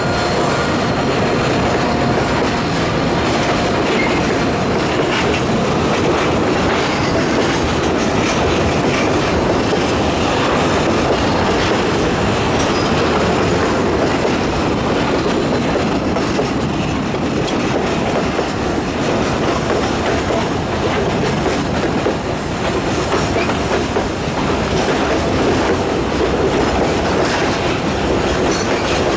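Freight train's tank cars and gondola wagons rolling past close by: a steady rumble of steel wheels on rail, with clickety-clack over the rail joints.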